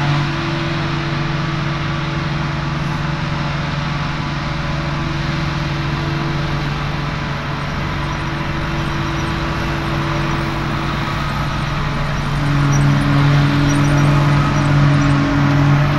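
Claas Jaguar 930 forage harvester running steadily as it picks up and chops grass, with tractor engines alongside; a constant machine hum that grows louder about three quarters of the way through, as a tractor with a silage trailer comes close.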